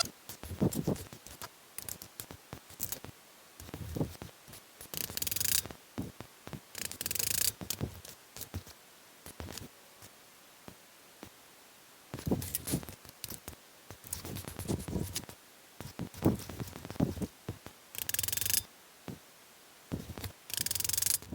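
Hand work on wooden pieces: irregular clusters of light taps and knocks, with several short scraping strokes in between.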